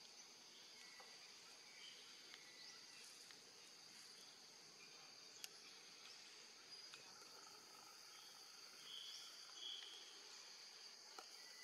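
Faint, steady high-pitched drone of insects, with a few short chirps scattered through it and a single sharp tick about five seconds in.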